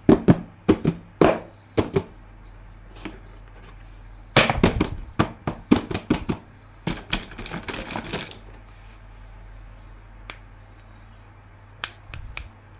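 Sharp clicks and taps of hard plastic being handled, coming in quick clusters with a few single clicks between them.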